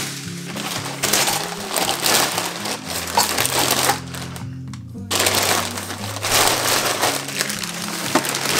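Thin plastic carrier bags rustling and crinkling as they are handled and bunched up, in two stretches with a short pause about four seconds in. Background music with a steady low bass line plays throughout.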